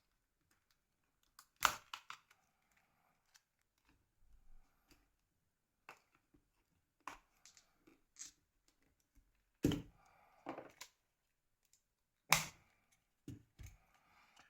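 Scattered sharp plastic clicks and snaps from a Nokia N73 mobile phone's parts being handled and pried at. The loudest snaps come about 2 s in and again around 10 and 12 seconds, with fainter ticks in between.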